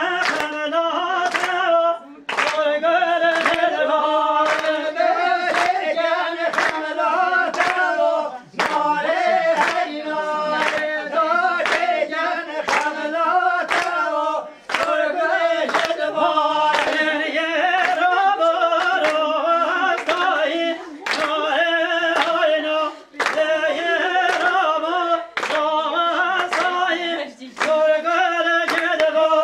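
A group of women singing together without instruments, keeping time with steady hand-clapping.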